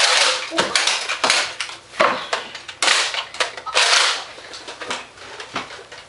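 Toy foam-dart blasters firing: an irregular string of sharp shots and clacks, several short puffs of air noise among them, with darts striking the room.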